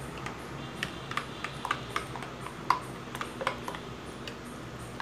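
Metal spoon clinking against a glass bowl while stirring a thick batter: a quick, irregular run of light clinks.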